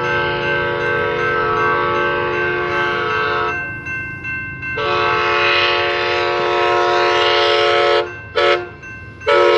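Amtrak San Joaquin locomotive horn sounding the grade-crossing signal as the train approaches: two long blasts, a short one, and a final long one starting near the end. Each blast is a loud, steady multi-tone chord.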